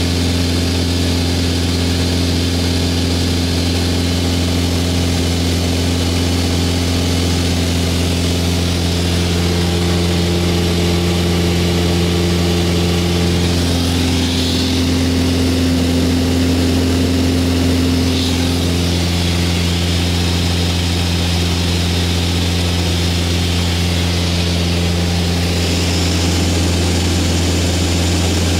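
Cabin drone of a Mooney 201's four-cylinder Lycoming IO-360 engine and propeller in cruise, at 2600 RPM and about 61% power. Steady and unchanging throughout.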